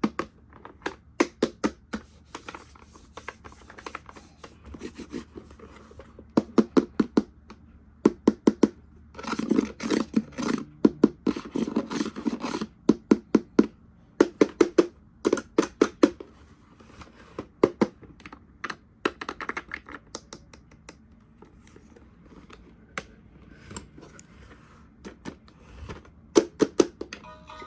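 Plastic toys and packaging being handled: a run of irregular clicks and taps, with a few seconds of denser scraping and rustling about ten seconds in.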